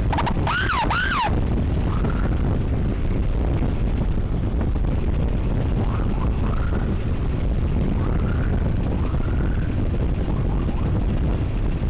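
Electronic siren yelping in quick up-and-down sweeps, cut off suddenly about a second in. Then the steady rumble of a moving motorcycle with wind on the microphone, and fainter siren sweeps further off.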